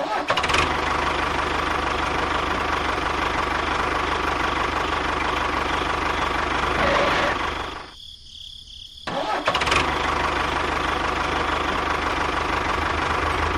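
A small engine running steadily. It drops out for about a second around eight seconds in, then runs again at the same level.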